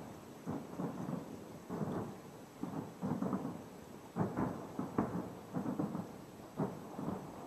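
Distant aerial fireworks bursting in an irregular string of booms, about two a second, each trailing off in a rolling echo.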